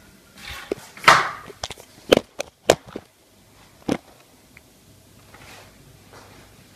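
A run of sharp knocks and clatters. A brushing rush ends in a loud knock about a second in, three quick knocks follow at two to three seconds, and a last one comes near four seconds.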